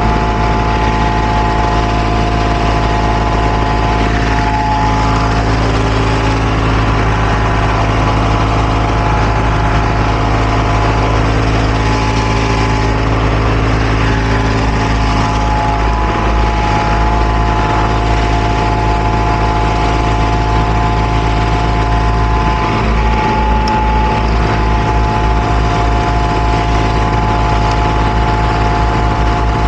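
Steady engine hum with a low rumble and a constant whine over it, running without a break.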